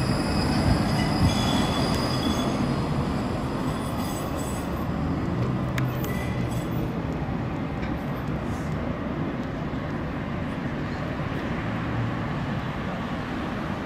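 Škoda articulated tram running on street rails: a steady rumble of wheels on track with faint high squeals now and then.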